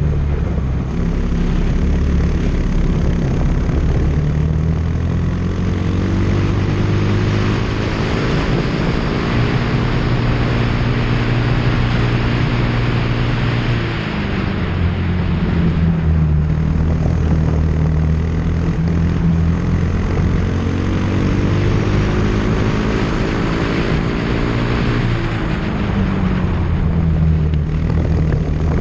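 Race car engine heard onboard at speed, its revs climbing steadily along the straights and falling sharply about halfway through and again near the end, with wind rushing over the car.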